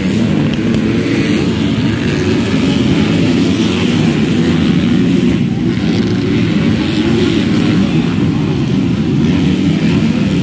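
Several motocross bike engines running together on the track, each revving up and down so their pitches overlap and waver.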